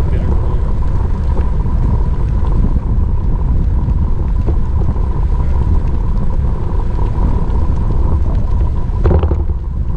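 Wind buffeting on an action camera's microphone while riding, a loud, steady low rumble, with a thin steady whine running under it and a brief louder gust about nine seconds in.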